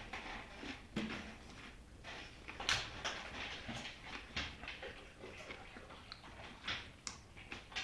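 Chewing crunchy yellow corn tortilla chips: a run of irregular crisp crunches, the loudest about three seconds in.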